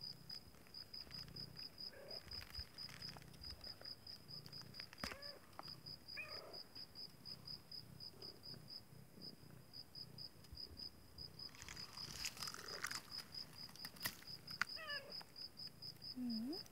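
A cricket chirping steadily in a high, even pulse, about five chirps a second. A few brief falling animal calls and a short rustle sound faintly behind it.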